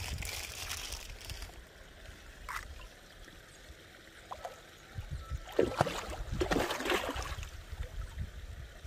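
Fish splashing and thrashing at the surface of a pond. There are a few splashes near the start, then a loud burst of sharp splashing from about five and a half to seven seconds in. Low wind rumble runs underneath.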